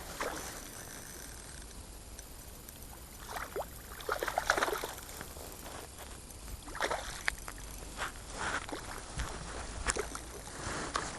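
Water splashing and sloshing in short irregular bursts, the loudest cluster about four seconds in.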